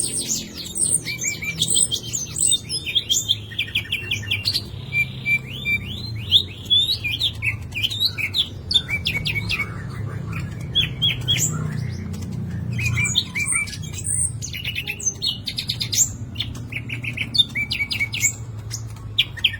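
Cucak ijo (green leafbird) singing non-stop in rapid, varied phrases of fast trills and sharp chirps. Its song is full of mimicked sikatan londo phrases, delivered in quick bursts. A low hum sits faintly underneath.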